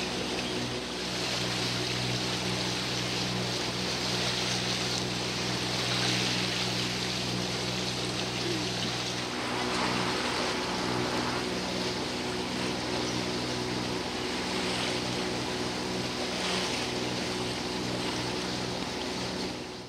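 Boat engine running steadily with a low hum, over the rush of wind and water along the hull.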